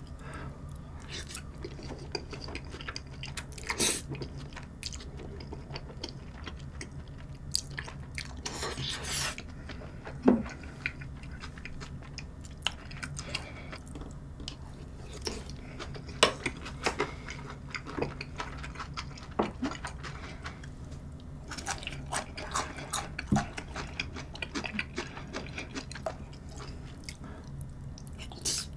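Close-miked eating: a person chewing mouthfuls of creamy spaghetti and pieces of beef, with wet mouth smacks, sucking-in sounds and occasional clicks of a fork and chopsticks.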